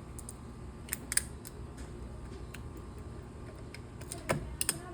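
Handling noise from small hard objects: a few light clicks and taps, in two short clusters about a second in and near the end.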